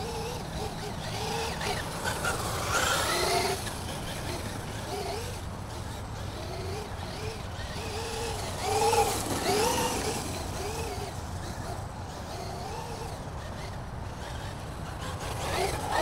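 Traxxas UDR RC truck's brushless motor whining in short rising-and-falling sweeps as the throttle is blipped, with louder rushes of motor and tyre noise about 3 and 9 seconds in, over a steady low rumble.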